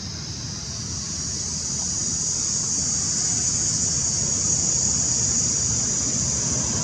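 A steady, high-pitched insect chorus that swells in loudness over the first few seconds and then holds, over a low rumble.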